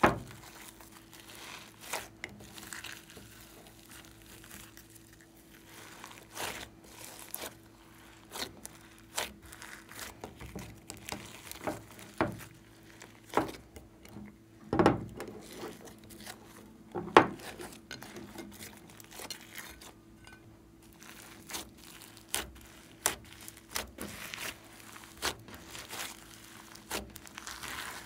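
Glossy slime mixed with foam beads being squeezed, folded and stretched by hand: irregular wet pops, clicks and crackles, with a couple of louder pops near the middle.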